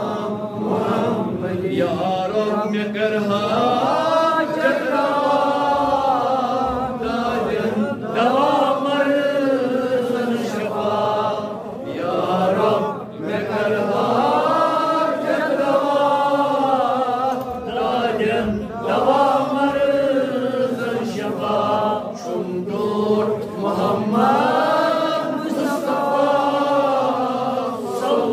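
A man chanting a munajaat, an Islamic devotional supplication, in a slow melodic voice. He holds long notes that rise and fall in pitch and breaks off briefly for breath every few seconds.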